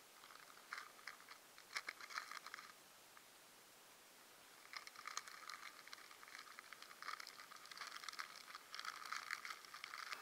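A plastic snack packet crinkling as it is handled: a short spell of irregular crackling about a second in, then a longer one from about halfway.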